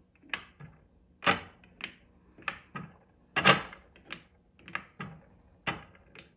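Irregular sharp clicks and knocks, about two a second, of an RCBS Little Dandy powder measure being worked from case to case over a plastic loading block, dropping a charge of H110 powder into each .357 Magnum case.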